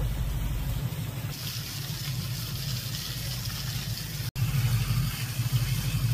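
Small waterfall running down a rock face after rain, a steady splashing under a heavier low rumble. The sound drops out for an instant about four seconds in, then carries on.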